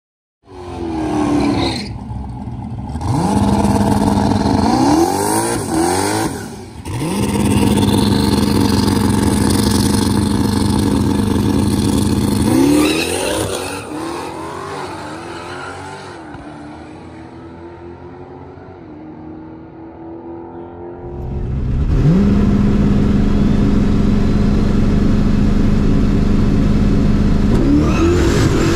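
Big-cubic-inch turbocharged F-body Camaro drag car's engine, revved and then held at one steady rpm on the starting line, launching about 13 seconds in with revs climbing through gear changes and fading away down the track. From about 22 seconds it is held steady again, and the revs rise once more near the end.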